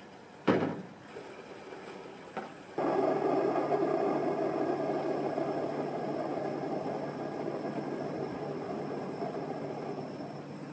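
A sharp knock, then a small solar-powered fountain pump starts suddenly, with a steady low hum and the splashing of water from its spout. The sound fades gradually as the panel is shaded.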